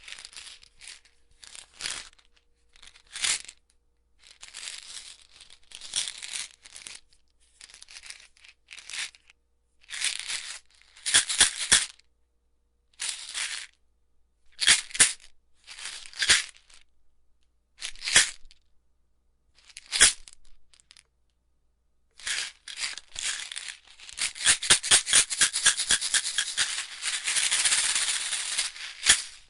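Pills rattling in a bottle, shaken in short separate bursts with pauses between them, then shaken rapidly and without a break for the last five seconds or so.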